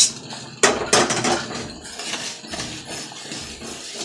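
Dry-roasted lentils poured from a metal kadai onto a steel plate: the grains rattle out, a metal spatula knocks sharply against the pan about half a second and a second in, then scrapes more softly.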